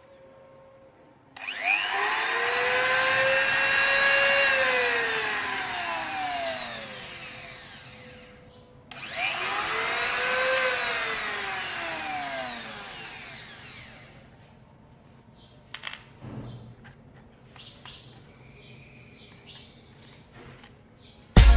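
Ingco mini grinder run twice with no load. Each time the motor starts abruptly, whines up to speed, then winds down with a long falling whine. A few faint clicks follow.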